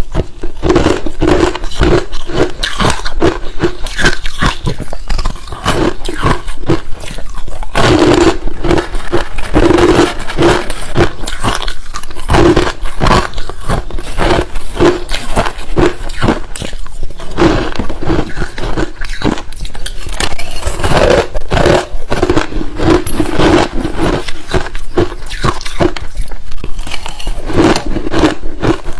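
Ice being bitten and chewed close to the microphone: a dense run of loud, crunchy cracks and crunches with short gaps between bites.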